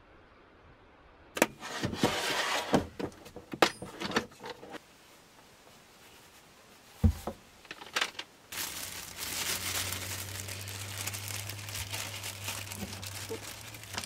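Clear plastic packaging crinkling and rustling as it is handled and opened, in short bursts at first, then continuously from about halfway on over a steady low hum. A single sharp knock comes about halfway through.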